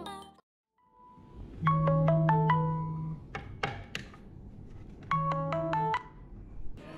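Samsung Galaxy S9 smartphone ringing with a short marimba-like melody, twice, a few seconds apart, each time over a low steady buzz. A couple of sharp clicks fall between the two phrases.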